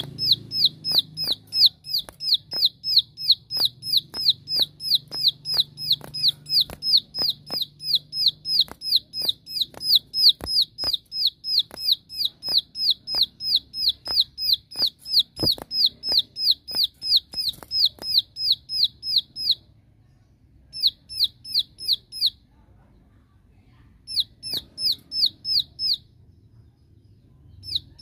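Caged plain prinia (ciblek sawah) calling its rapid 'shooting' challenge song, a long run of sharp, downward-slurred notes at about two or three a second, the call used to provoke rival prinias. About two-thirds of the way through the run breaks off, then comes back in short bursts.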